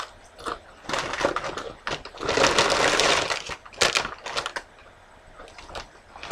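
Crisp tortilla chips being bitten and chewed: irregular crunching in bursts, densest and loudest about two to three seconds in.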